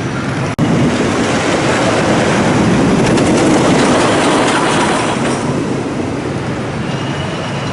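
A roller coaster train rumbling past on its track, with a clattering rush that swells to a peak mid-way and then fades as it moves away.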